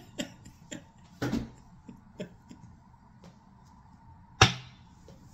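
Small scattered taps and clicks from hands handling a deck of tarot cards at a table, with one sharper click about four seconds in, over a faint steady hum.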